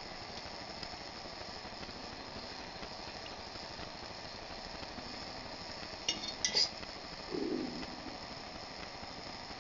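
Wire whisk stirring curdling milk in a metal pot, with a few sharp clinks of metal on metal about six seconds in, over a steady hiss. A short low sound follows about a second later.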